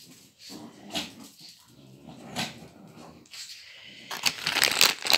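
A small dog making short, low vocal sounds, then a louder scratchy, rustling noise from about four seconds in.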